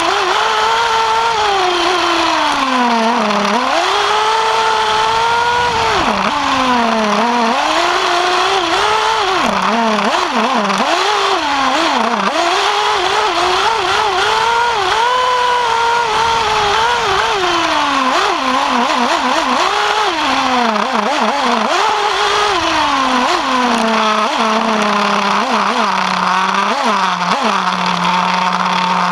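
Novarossi nitro engine of a Kyosho Inferno MP9 TKi3 1/8-scale buggy, heard on board, revving hard and dropping repeatedly as the car laps, the pitch falling off under braking and climbing again on each straight. Near the end it settles to a steady low idle with a few short throttle blips.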